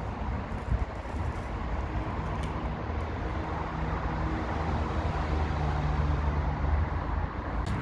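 Road traffic: a passing motor vehicle's engine hum grows louder over several seconds, over a steady low rumble.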